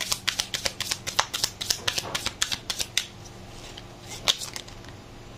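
A deck of tarot cards being shuffled by hand, the cards clicking against each other about six or seven times a second. The clicking stops about three seconds in, and a single sharper snap follows a second later.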